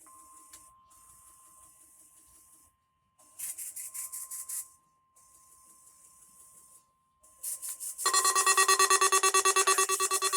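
NOAA Weather Radio broadcast of an EAS weekly test: a faint steady tone under bursts of hissy static that cut in and out, then about eight seconds in a loud, harsh, rapidly pulsing electronic alert signal starts.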